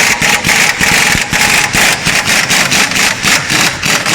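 Impact wrench hammering in a fast, loud rattle of many strokes a second, as used to undo suspension or spring bolts.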